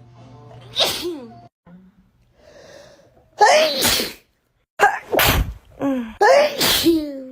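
A young woman sneezing from an allergy: one sneeze about a second in, then after a pause a rapid run of five or six loud sneezes in quick succession.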